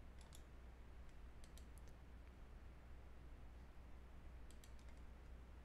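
Faint clicks from computer use at a desk, in three short clusters of a few clicks each, over a low steady hum; otherwise near silence.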